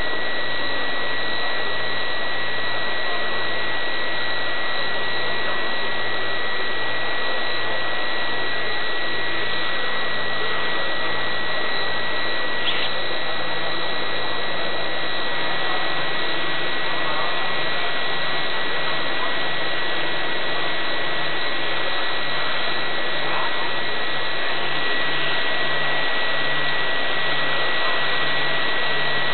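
Steady whirring of a radio-controlled blimp's electric propeller motors, heard close up through its onboard camera's microphone, with a thin steady whine over it. A low pulsing hum underneath steps up in pitch about halfway through.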